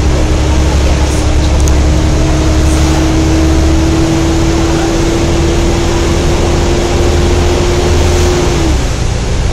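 Wright Eclipse Gemini double-decker bus running with a loud, steady whine over a low engine drone: the bus's 'hoover' noise. The whine creeps slightly up in pitch, then cuts off near the end.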